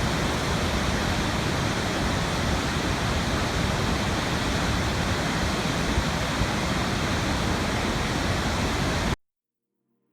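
Steady, even rushing noise that cuts off abruptly about nine seconds in.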